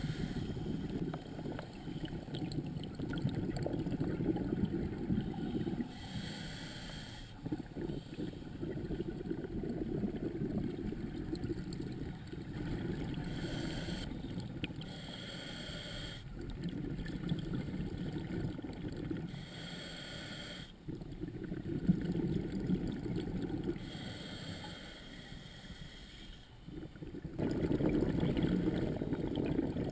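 Scuba diver breathing through a regulator underwater: a short hissing inhale about every five to six seconds, each followed by a longer low bubbling rumble of exhaled bubbles.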